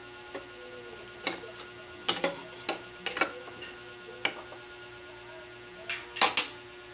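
A cooking utensil knocking and scraping against the side of a metal pot while stirring pork pieces in simmering sauce: about ten irregular clinks, the loudest near the end. A steady faint hum runs underneath.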